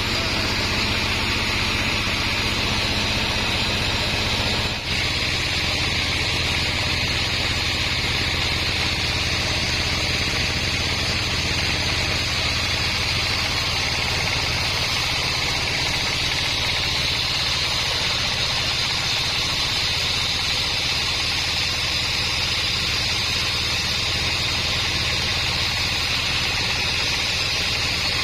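Sawmill log bandsaw running steadily: a continuous machine hum with a hiss on top, which briefly dips about five seconds in.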